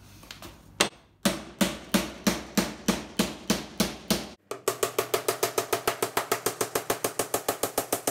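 Hammer blows knocking over the edge of a hand-made metal quarter panel around its wooden wheel-arch frame. Separate strikes come about two a second, then from about halfway a quicker, even tapping of roughly five or six a second with a slight ring.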